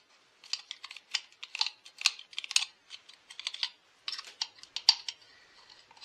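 A screwdriver probing inside a stripped-down Husqvarna chainsaw's frame: a run of light, irregular clicks and scrapes of the tool against metal parts.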